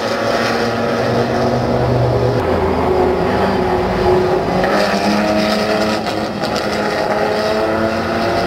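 Historic race cars at speed, a Ferrari 275 GTB's V12 among them, with several steady engine notes that change pitch as the cars pass. One low note steps down about two and a half seconds in.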